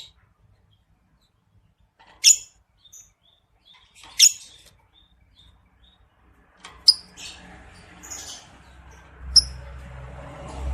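Lovebird giving short, sharp, high chirps: four louder ones roughly two seconds apart, with softer chirps between them. Background noise rises in the second half, with a low rumble near the end.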